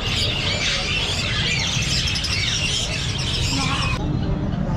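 Many caged birds chirping and twittering together, a dense overlapping chorus of short high calls over a steady low rumble. The chirping cuts off abruptly about four seconds in.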